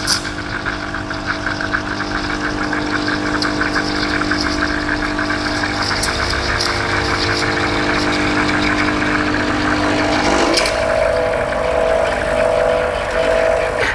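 Espresso machine steam wand steaming milk in a stainless pitcher for a latte: a steady hiss with a set of steady tones, which jump higher about ten and a half seconds in.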